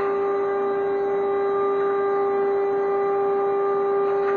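CNC wood router's 0.8 kW water-cooled spindle running at speed: a loud, steady whine with a row of overtones over a hiss of cutting noise, as the cutter ramps slowly down into a wooden blank at reduced feed.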